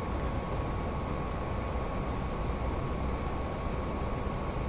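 Steady background noise: an even hiss and rumble with a faint constant whine, unchanging throughout.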